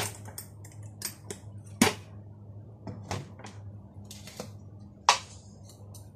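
Sharp clicks and knocks of kitchen handling, about half a dozen spaced a second or so apart: a spoon and jar against a drinking glass as sugar is spooned in, then an instant coffee jar being picked up and opened. A faint steady low hum runs underneath.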